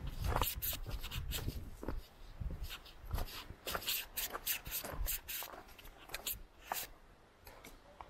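Footsteps on a trail: an irregular run of short scuffs and crunches, a few a second.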